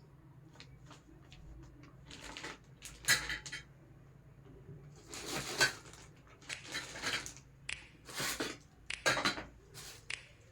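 High chair parts being handled and set down, an irregular series of clattering knocks and rattles of hard pieces against each other.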